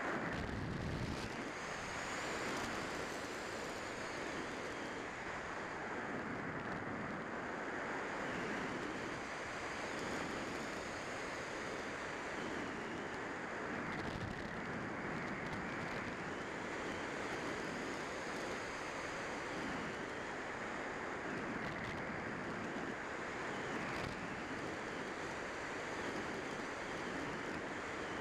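Steady rush of airflow over a Multiplex Heron RC glider and its onboard camera as it glides, with no motor heard. A faint high whistle comes and goes several times.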